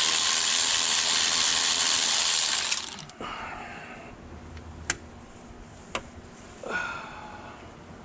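A power tool runs steadily for about three seconds while loosening hardware on a motorcycle engine, then stops; a few sharp clicks of parts being handled follow.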